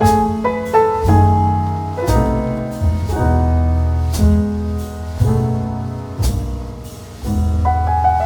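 Background music: a piano-led instrumental with a bass line and light drums, the notes changing in a steady beat.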